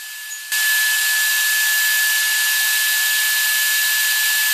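DeWalt miter saw switched on about half a second in and running at full speed with a steady high whine, its blade spinning free as the head is lowered toward a Baltic birch plywood board.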